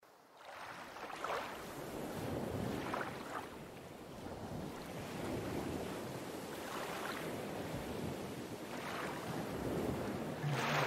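A rushing, wind-like noise fades in from silence and builds slowly, with a few brief whooshing swells, as the ambient noise intro of a metal song.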